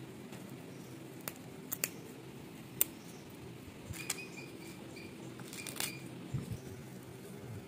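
Kitchen knife chopping curry leaves on a wooden cutting board: sharp, irregular taps of the blade against the wood, several coming close together near the end.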